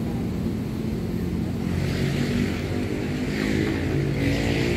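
Mobile crane's diesel engine running steadily. A higher hiss comes in about two seconds in.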